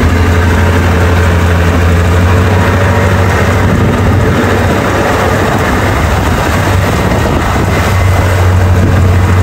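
The tow boat's outboard motor running steadily at speed, a constant low hum under a steady rush of noise.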